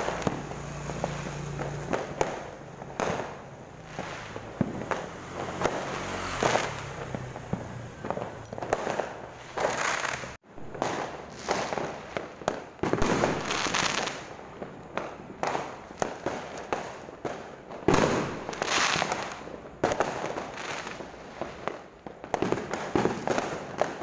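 New Year's Eve fireworks and firecrackers going off all around: an almost unbroken series of irregular bangs and crackling, with louder booms about thirteen and eighteen seconds in.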